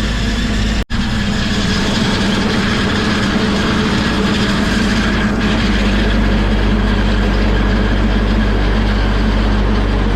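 Heavy truck engine running steadily, heard from inside the cab, with the sound cutting out for an instant about a second in.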